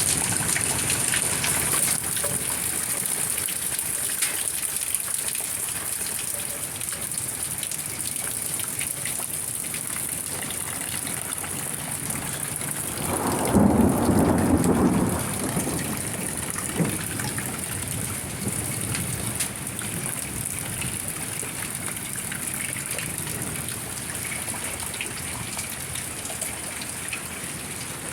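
Steady rain falling, a continuous hiss. About halfway through, a louder low rush swells for a couple of seconds and fades.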